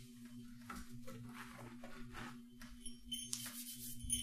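Faint rustling and handling sounds over a low steady hum, with a light jingling of small bells starting near the end.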